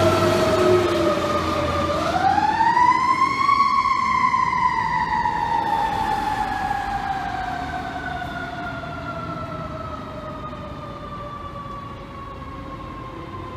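Fire engine's Federal Q2B mechanical siren. About two seconds in it is revved sharply up to a higher pitch, then coasts slowly lower as it winds down, fading as the truck pulls away. There is low diesel rumble early on.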